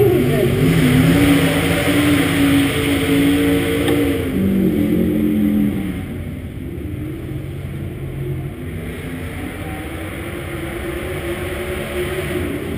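Dirt late model race car's V8 engine running, its pitch holding and then dropping about four to five seconds in. After about six seconds it settles to a quieter, steady run.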